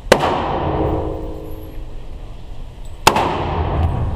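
Two shots from an AR-15 rifle about three seconds apart, each followed by a long echo off the walls of an indoor range.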